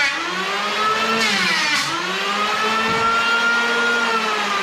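Electric jigsaw cutting a wooden board. The motor runs as a loud whine whose pitch sags and recovers as the blade loads up, with a marked dip about two seconds in.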